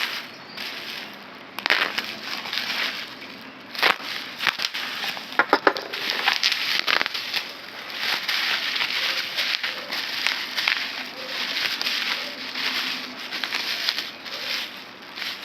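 Packaging being handled: crinkling and crackling with irregular sharp clicks, as wrapping around the graphics cards is unpacked.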